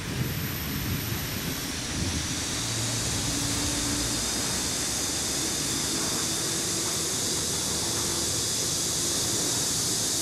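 Steady outdoor ambience: an even, high-pitched hiss that swells about two seconds in, with a low wind rumble on the microphone that dies down at about the same time.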